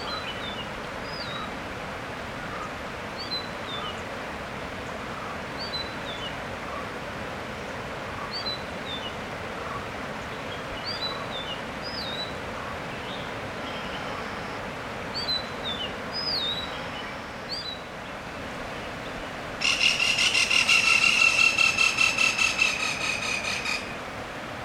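A small bird calling short falling chirps every second or two over a steady rushing background. Near the end a loud, even buzzing rattle takes over for about four seconds.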